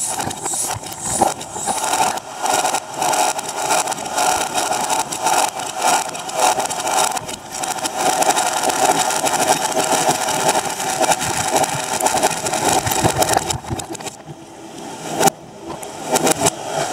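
Fireworks bangs and crackle played sped up and in reverse, blurring into a dense, rattling chatter of cracks. It thins out briefly near the end, and a single sharp crack follows.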